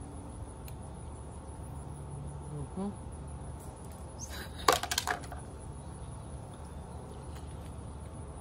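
Wet mouth noises of someone biting and sucking at soft soursop pulp: a short burst of smacking and slurping clicks about halfway through, over a steady low background.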